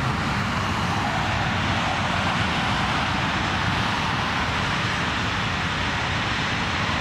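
Jet airliner engine noise on the airfield: a steady rushing sound over a low rumble.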